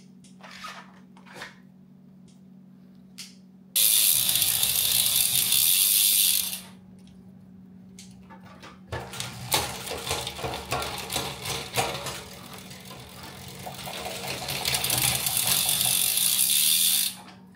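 Bicycle workshop work: a few light clicks, then a loud hiss lasting about two and a half seconds. From about nine seconds in comes a long run of fast ratcheting clicks, which grows louder and stops sharply near the end.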